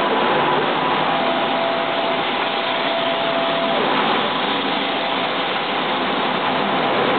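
Fina 320Q large-format inkjet printer running: a steady mechanical whir of its fans and drive, with a faint held whine from about one second in to about four seconds in.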